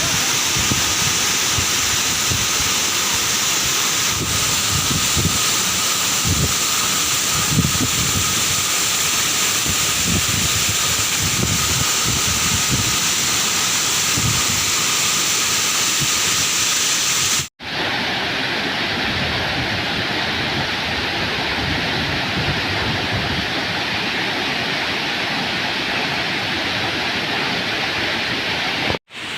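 Waterfall's steady, loud rush of falling water close to the microphone, with irregular low buffeting on the microphone in the first part. The sound drops out abruptly about 17 seconds in and again near the end, resuming each time with a duller tone.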